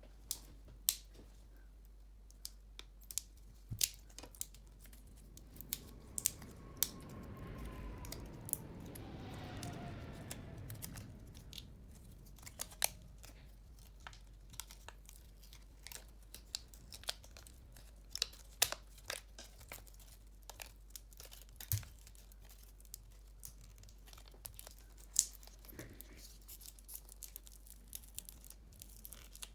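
Small hand-handling sounds of a speaker repair: scattered light clicks and taps of parts and tools. A longer rustling, peeling noise swells up about six seconds in and fades by about twelve, with a faint falling whine inside it.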